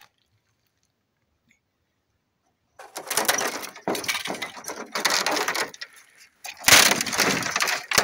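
Brittle plastic inner liner of a shot-up refrigerator door cracking and crunching as it is pulled and broken away by hand. It comes in two spells, starting about three seconds in, with a short pause and a louder second spell near the end.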